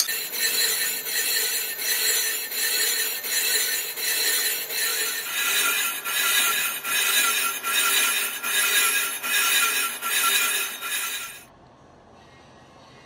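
Background music with a steady beat, which cuts off about eleven seconds in and leaves a faint low machine hum.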